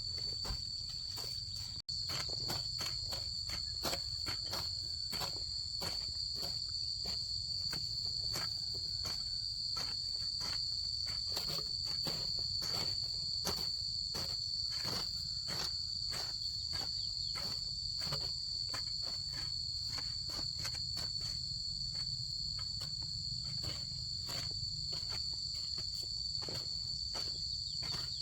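Insects droning steadily in a high, unbroken note, with a quick run of short clicks or ticks, about two a second, throughout.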